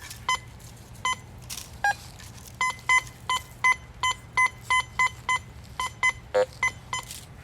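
Teknetics Patriot metal detector giving short high-pitched target beeps, a steady run of about three a second as the coil sweeps back and forth over a buried target. A lower tone sounds once near two seconds, and a low buzzy tone near the end.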